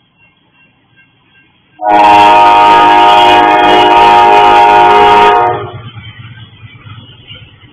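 Locomotive air horn sounding one long, loud blast of about three and a half seconds, a chord of several notes, for the grade crossing as the train approaches. When the horn cuts off, the low rumble of the oncoming train follows. Before the horn the crossing bell dings faintly.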